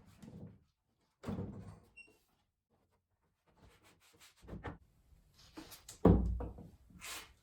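Knocks and thumps of a wooden table frame being handled and flipped over on the bench, with the heaviest thump about six seconds in.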